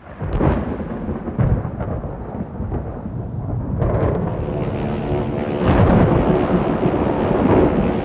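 Thunderstorm: loud rumbling thunder over rain, with sudden crashes about half a second and four seconds in. A steady droning hum joins about four seconds in.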